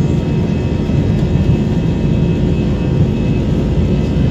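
Steady rumble of an airliner's jet engines and its wheels rolling on the runway, heard from inside the passenger cabin.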